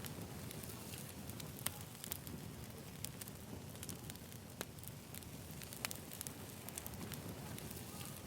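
Wood campfire crackling: irregular sharp pops and snaps over a low, steady rumble of burning.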